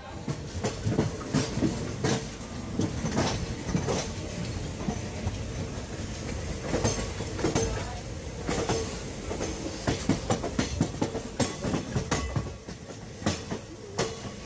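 Passenger coach wheels clattering over rail joints as the express pulls out, heard from on board: a steady rumble with many irregular sharp clicks, and a faint steady tone underneath.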